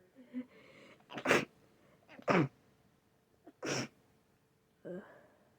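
A person with a cold sneezing three times in quick succession, loud snotty sneezes about a second apart, then a shorter, softer voiced sound near the end.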